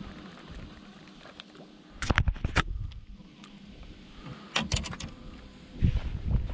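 Two short clusters of sharp knocks and clatters, about two seconds in and again near the five-second mark, as someone moves about the fishing boat, then low rumbling buffeting on the microphone near the end.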